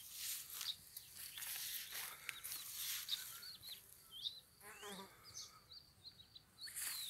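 Small birds chirping in short high calls through the second half, with one lower call that drops in pitch about five seconds in. Over it come repeated bursts of rustling.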